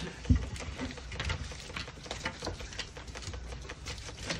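Long-handled window-cleaning brush scrubbing and tapping against a wet glass door, with irregular taps and a water patter throughout and one heavier knock about a third of a second in.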